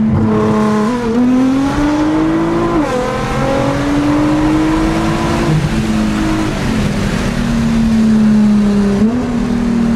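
Nissan GT-R's twin-turbo 3.8-litre V6, freshly tuned with downpipes, intakes and a race tune, heard from inside the cabin as the car pulls. The engine note climbs, drops sharply about three seconds in at an upshift, and climbs again. It then drops and eases lower over the last few seconds.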